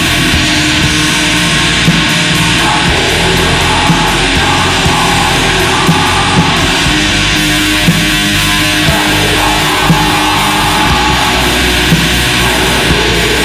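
Black metal music: a dense, heavily distorted wall of guitars and drums at a steady loud level, with an accented beat about once a second.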